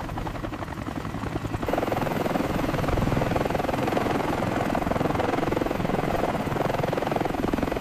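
Helicopter hovering, its rotor blades making a fast, even chop with a deep drone underneath, which gets louder about a second and a half in and then holds steady.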